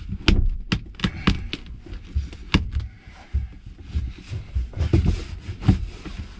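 Irregular knocks, thumps and scrapes of hands working in a tight space beside a plastic RV toilet, pulling a piece of old carpet loose from against a wood panel.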